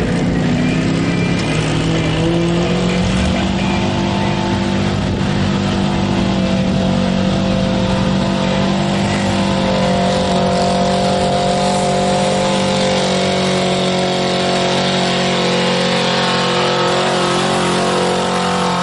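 Dodge Ram pickup's engine at full throttle, dragging a truck-pulling sled: the revs climb over the first couple of seconds, then hold high and steady as the truck works against the sled's load.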